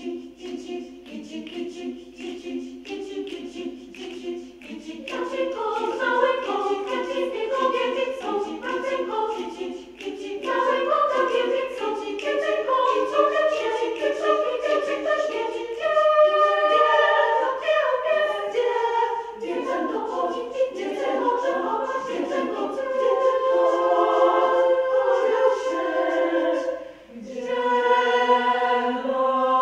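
Women's choir singing a cappella in several parts. It starts soft and grows louder about five seconds in, with a brief pause for breath near the end.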